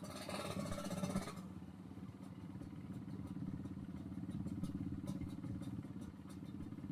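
Yamaha RX-King's two-stroke single-cylinder engine running through an aftermarket underslung exhaust, a steady low pulsing note, with a louder rush of noise over it for the first second and a half.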